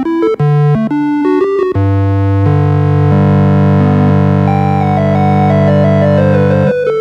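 Synthesizer background music: a quick run of short notes, then about two seconds in it settles into held chords with a slow, stepwise falling melody over them.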